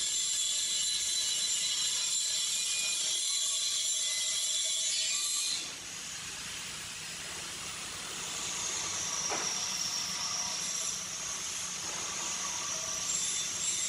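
Big humanoid robot's leg drive motors whining with a high hiss as it walks. The sound drops abruptly about six seconds in, then a whine that dips and rises in pitch comes back, with a faint knock in the middle.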